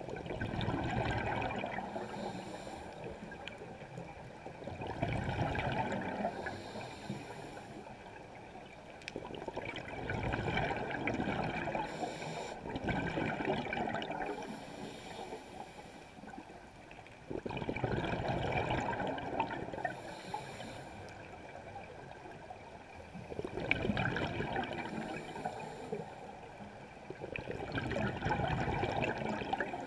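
Scuba diver breathing through a regulator underwater: exhaled bubbles from the regulator exhaust rise in a noisy swell about every five seconds, six times, with quieter inhales between.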